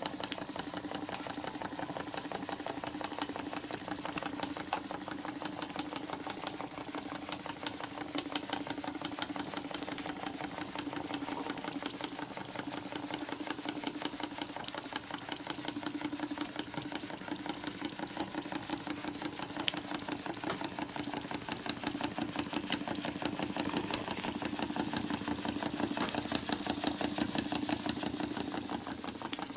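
Bassett-Lowke toy steam donkey engine running fast, giving a rapid, steady clicking beat of many strokes a second.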